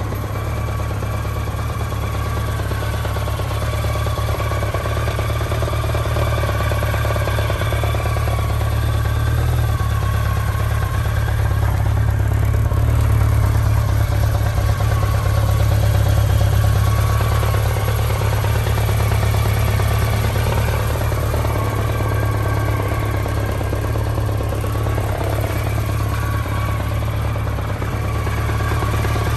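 BMW K1200RS (2002) water-cooled four-stroke inline-four idling steadily through its stock exhaust.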